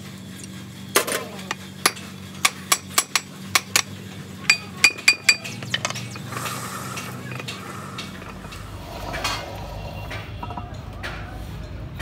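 A hammer tapping on a truck differential's ring gear carrier and bearing cap as it is seated in the housing: about a dozen sharp metallic taps over four or five seconds, the last few ringing. Lighter handling noise follows.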